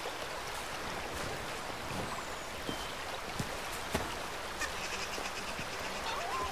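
Steady rush of a flowing stream, with a few soft clicks.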